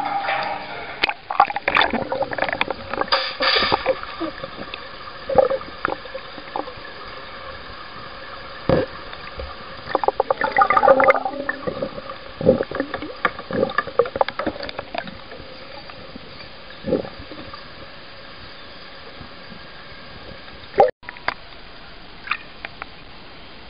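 Water gurgling and bubbling heard underwater, in irregular bursts and pops that come thickest early on and again around ten seconds in, then thin out, with a sharp click about 21 seconds in.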